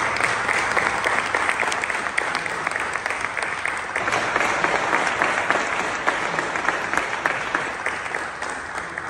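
Applause from a hall full of people, many hands clapping at a steady level and tapering off near the end.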